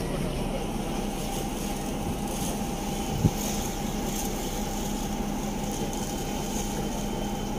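Boat engine running steadily, with one short knock about three seconds in.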